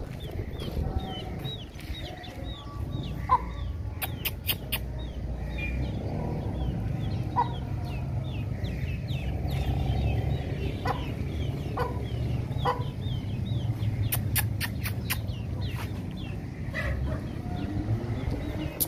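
Aseel hen's chicks peeping over and over in thin, high notes, with a few short, lower clucks from the hen among them. Two quick runs of sharp clicks come about four seconds in and again near the end, over a steady low rumble.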